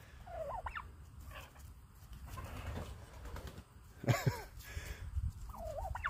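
Broad-breasted white turkey tom calling while strutting: three short calls, the loudest about four seconds in. He is a young male just starting to gobble.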